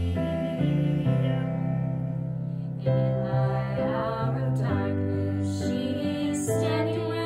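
Mixed choir of male and female voices singing a slow song in long held notes, accompanied by piano.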